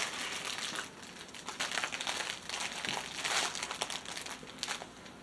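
Plastic packaging crinkling and rustling as it is handled, in uneven bursts.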